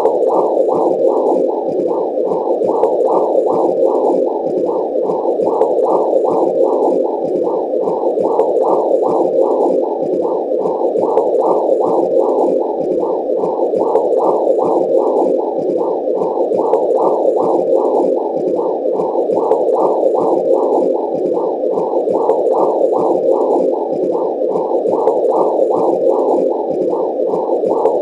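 Womb sound for soothing babies: a steady muffled whooshing that pulses in an even rhythm, about two beats a second.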